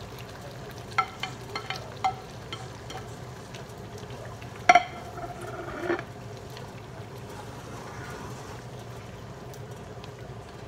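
A spatula stirring vegetables into a simmering tomato-sauce stew in a granite-coated pan, over a steady simmer. It knocks and scrapes against the pan a few times in the first two seconds, hardest just under five seconds in and again about six seconds in.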